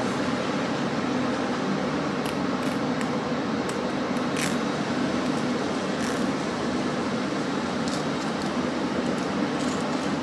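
Steady hum of a room air conditioner, with a few faint scattered clicks and scrapes from a small stainless steel multi-tool being handled.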